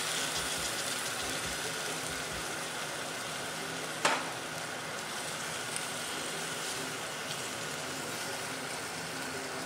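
Seasoning liquid of water, soy sauce, mirin and sugar sizzling and bubbling in a frying pan of chicken and root vegetables as it heats up toward a boil, a steady hiss. A single sharp knock about four seconds in, and chopsticks stirring the ingredients near the end.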